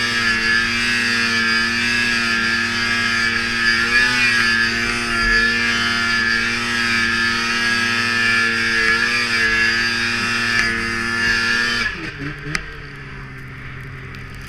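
Snowmobile engine running at high, steady revs while sidehilling through deep snow, its pitch dipping and recovering briefly a couple of times. Near the end the revs drop suddenly to a lower, quieter note, with a single knock.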